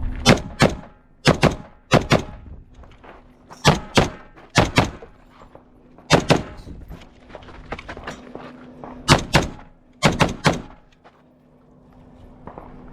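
Rifle shots at very close range, fired mostly in quick pairs, about eight pairs with short pauses between them.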